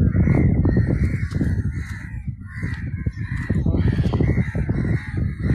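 Crows cawing again and again, one call about every half second, over a loud low rumble of wind and handling on the phone microphone.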